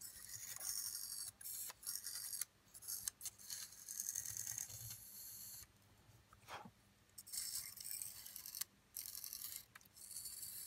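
A thin metal pick scraping the belt groove of a Sony WM-FX811 cassette Walkman's spinning pulley, to clean it while the mechanism runs, in short raspy strokes with pauses between them. One brief rising squeak comes about two-thirds of the way through.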